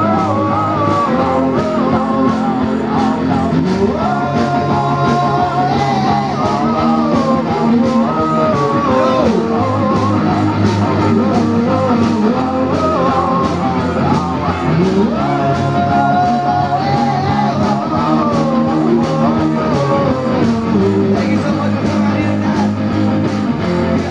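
Live garage rock from a two-piece band: distorted electric guitars over a steady drum beat, with a male voice singing held, wavering notes.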